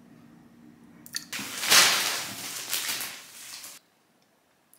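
Food-prep noise at a ceramic mixing bowl of egg mixture: a short click just after a second in, then about two and a half seconds of hissy mixing and pouring noise that cuts off abruptly.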